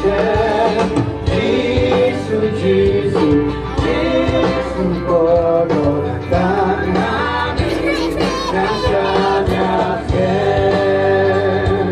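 Music with singing: sung melody lines with long held, wavering notes over a steady instrumental accompaniment, continuous throughout.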